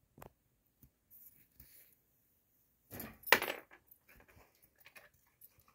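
Dog shifting about inside a wire crate, with faint clicks and one louder rattling clatter about three seconds in as it moves to lie down.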